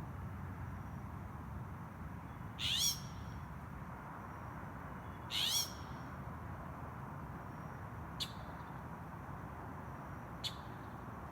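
A bird calling: two loud, harsh calls of under half a second each, about three seconds apart, then two much shorter sharp calls later on, over a steady low background rumble.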